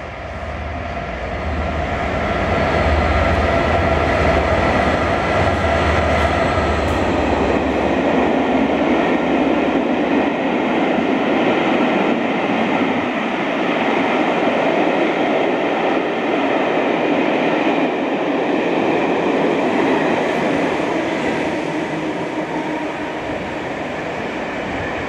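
Class 67 diesel locomotives hauling Pullman coaches pass through the station. The leading locomotive's EMD two-stroke V12 diesel gives a deep throb for the first several seconds, then the steady rumble of the coaches' wheels on the rails follows, easing off near the end as the train draws away.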